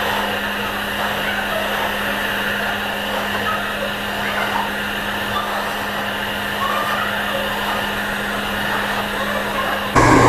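Handheld hair dryer running steadily, blowing on hair, with a steady hum under the airflow. Near the end it suddenly gets louder and its hum drops lower.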